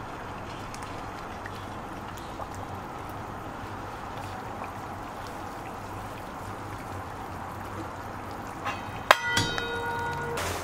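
Water boiling in a stainless steel stockpot, a steady bubbling hiss. About nine seconds in, a sharp metallic clang rings on for about a second and a half.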